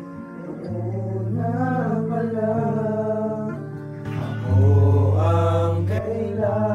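Singing to an acoustic guitar: a sung melody with held notes over strummed or plucked chords, swelling louder about halfway through.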